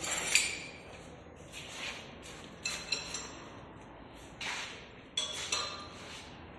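Scattered metallic clinks, several leaving a brief high ringing, with a few short hissing noises in between.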